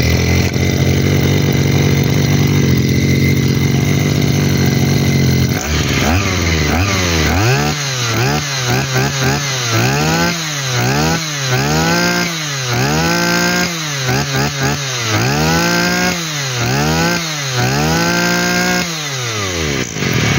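Small two-stroke brush cutter engine (UP220) running just after being started. It holds a steady idle at first, then is revved about ten times, rising and falling in pitch roughly once a second, before dropping back to idle near the end.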